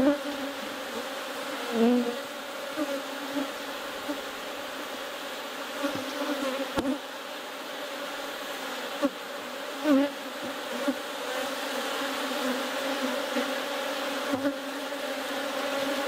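Honey bees buzzing around an open hive, a steady drone with individual bees swooping close by now and then. A few short knocks come in around the middle.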